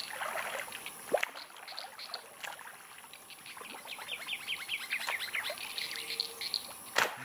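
Birds chirping over faint water sounds, with two sharp knocks, one about a second in and one near the end.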